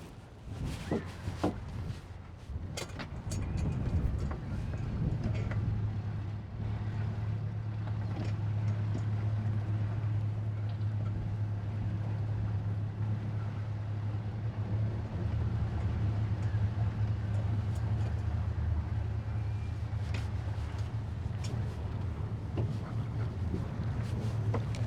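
Boat engine running steadily with a low hum, picking up and getting louder about four seconds in, after a few sharp knocks at the start.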